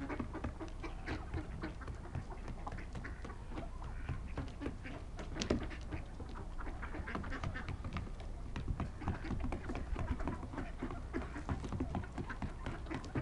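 Mixed flock of mallard ducks and wild turkeys calling as they forage: a busy, constant chatter of short quacks and clucks, with one louder sharp call about five and a half seconds in.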